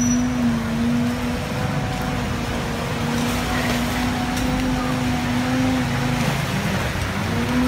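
Street traffic noise with a steady pitched hum running through it, which drops out briefly about a second and a half in and again near the end.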